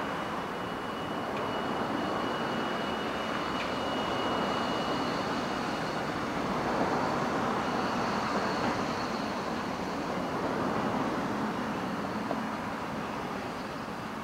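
Steady street traffic on a wide city avenue: cars passing, with a streetcar moving off along its tracks. A faint high steady whine runs through the first few seconds.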